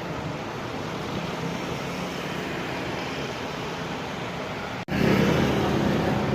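Steady road traffic noise from passing vehicle engines and tyres, with no horn sounding. About five seconds in it cuts out for an instant and comes back louder.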